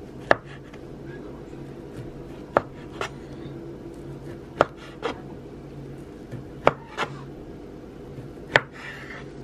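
Chef's knife slicing through a block of tempeh and tapping down on a wooden cutting board, one sharp knock every two seconds or so, some in quick pairs. A steady low hum sits underneath.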